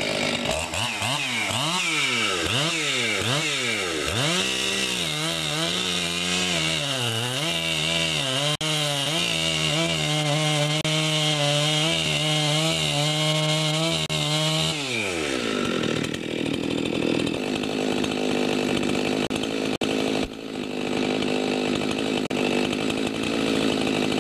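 Husqvarna 257 57cc two-stroke chainsaw revved repeatedly up and down, then held at high revs; about 15 seconds in the pitch drops and the sound turns rough and noisy as the saw cuts into wood. The carburetor has just been leaned slightly on the low screw after running rich.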